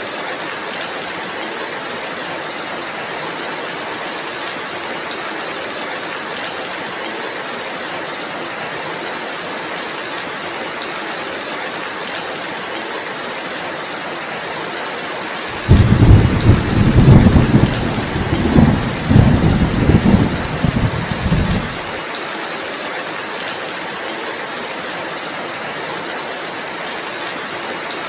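Steady heavy rain hiss, with a roll of thunder rumbling in uneven swells for about six seconds, starting suddenly about halfway through.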